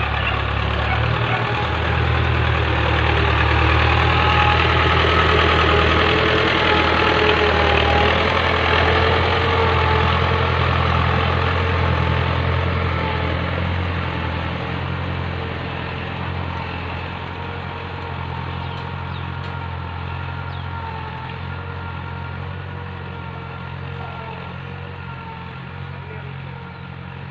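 Tractor engine running steadily while ploughing, loudest a few seconds in and then gradually getting quieter.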